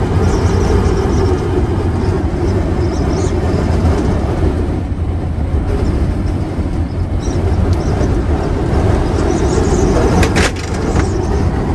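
Steady low rumble of road, engine and wind noise inside a motorhome's cabin while driving, buffeted by a strong bora wind.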